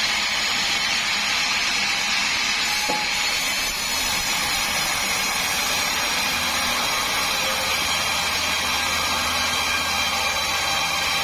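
Sawmill machinery running steadily while milling meranti logs, an engine-driven saw with a constant high-pitched whine and noise. A single click comes about three seconds in, and a low hum joins about six seconds in.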